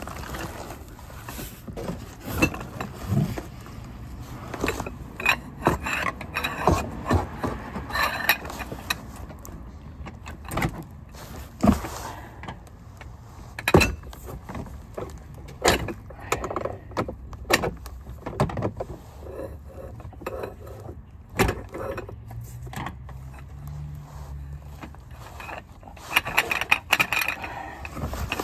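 Metal hand tools clinking and knocking at irregular intervals as sockets, extensions and a breaker bar are handled and fitted, with a quick run of rattling clicks near the end.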